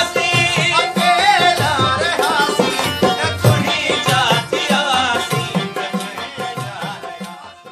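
Background folk music with singing over a drum beat, fading out near the end.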